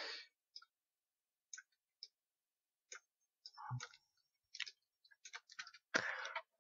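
Faint, scattered clicks of a computer keyboard and mouse, including repeated Tab key presses, with silence between them and a short louder noise near the end.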